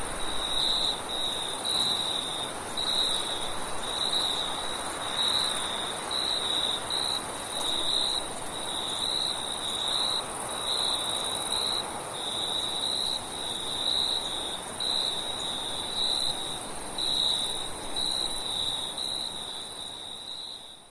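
Crickets chirping at night in a quick run of short pulsed trills, with a higher, steady insect buzz above them, over a steady rush of wind. It all fades out near the end.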